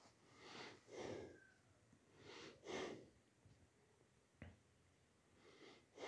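Faint breathy puffs, like sniffs or breaths, four in a row over the first three seconds and one more at the very end, with a single short click a little past the middle.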